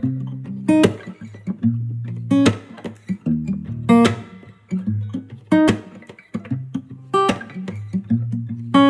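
Instrumental background music: plucked guitar over a low bass line, with a bright note sounding about every second and a half.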